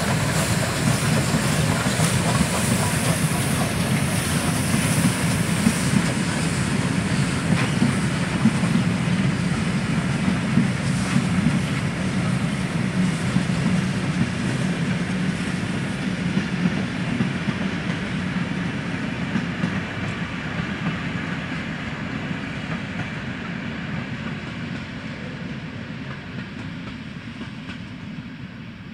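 Double-headed steam train, a class 01 and a class 52 locomotive hauling a mixed rake of coaches, running past with a steady rumble of wheels on the rails. It fades steadily over the last ten seconds as it draws away.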